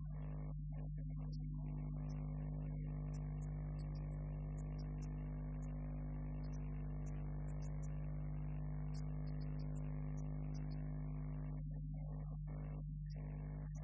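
Steady low electrical hum with many overtones, unchanging in pitch and level.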